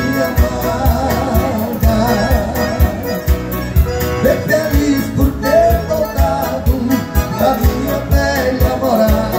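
Live music: two male voices singing together into microphones over a Roland VA-76 arranger keyboard accompaniment with a steady beat.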